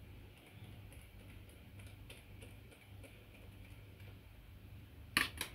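Faint scattered ticking and clicking of a hand screwdriver driving a small screw into a model part, followed by two sharp knocks in quick succession about five seconds in.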